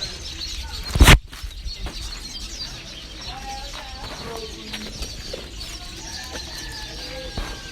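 Chickens clucking faintly, with one loud sharp thump about a second in.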